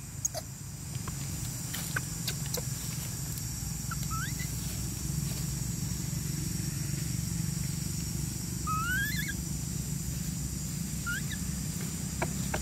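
Steady low outdoor rumble with a few faint, short rising squeaks, about three times, the middle one near the end longer and in two parts.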